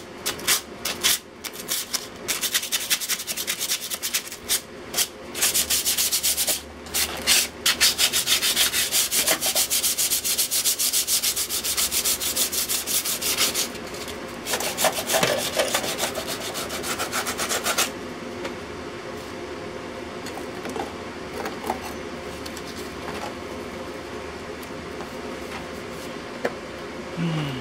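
Rapid hand scrubbing of the rusted sheet-metal top of an electrical box, abrasive strokes scraping off rust. The scrubbing stops about two-thirds of the way through, leaving a steady low hum.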